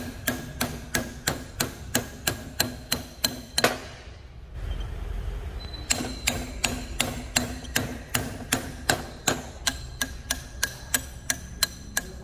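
Steady hammer blows on a square steel drift bar set against a jaw of a four-jaw lathe chuck, about three blows a second, each with a short metallic ring. The blows are knocking the chuck jaw loose to remove it. They pause for about two seconds around four seconds in, then carry on.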